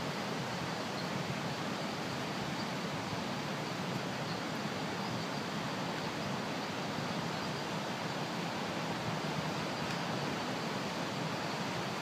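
Steady, even rushing noise of night-time ambience, with a faint high-pitched trill above it.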